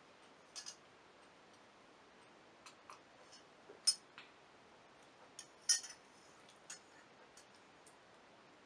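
A few faint clicks and taps as a glass of absinthe diluted with water is sipped. The loudest come about four and six seconds in.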